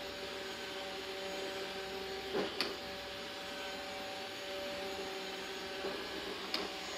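Dreame D9 robot vacuum running, its motors giving a steady hum with a few fixed tones. A few short knocks break in, two close together about two and a half seconds in and two more near the end.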